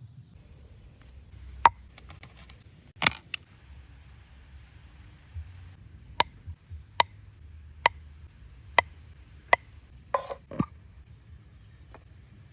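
A series of sharp knocks, like hard chopping or tapping: a few scattered strikes, then five evenly spaced about one a second, then a short clatter near the end.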